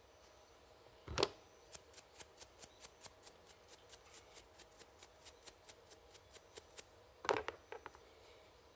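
A knurled threaded collar on a small metal fitting being turned by hand: a sharp knock about a second in, then a steady run of light clicks, about four a second, for some five seconds, and another knock with a few quicker clicks near the end.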